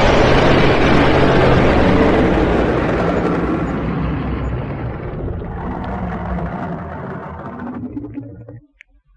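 Dragon roar sound effect: one long, loud, rumbling roar that fades slowly and cuts off near the end.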